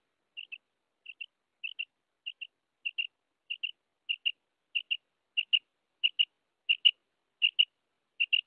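Common quail calling: a series of short, high, paired notes, about one pair every 0.6 seconds, growing steadily louder.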